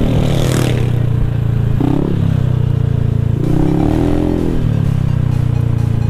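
Honda ADV scooter's single-cylinder engine running steadily while riding, its note rising and falling a little a few times.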